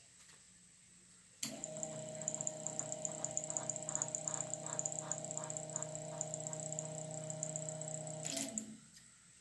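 Minn Kota RipTide trolling motor's electric motor, wired straight to a 12-volt battery with its control board bypassed, starts suddenly about a second and a half in and runs with a steady hum and a high whine, the propeller spinning in air, then cuts off near the end and winds down. The motor running on direct power shows that the control board is the faulty part.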